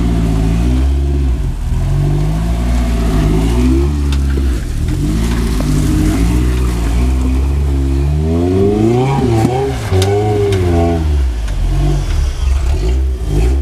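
Engine of a small off-road 4x4 revving up and down as it climbs over boulders, its pitch rising and falling with each push of the throttle, widest about two-thirds of the way through. A few sharp knocks come near the middle.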